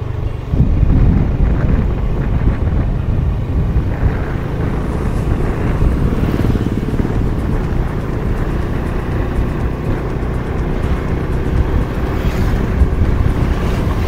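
Riding noise from a moving motorcycle: heavy wind rumble on the microphone with the engine running underneath, steady throughout.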